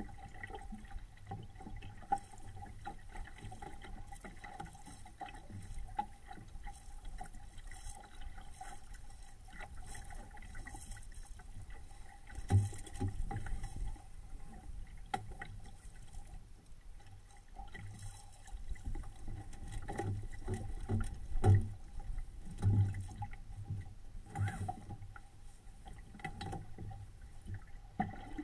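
Water lapping and splashing against the hull of a small SCAMP sailboat under sail, with irregular low thuds of waves hitting the hull that come thickest in the middle of the stretch. A faint steady tone runs underneath.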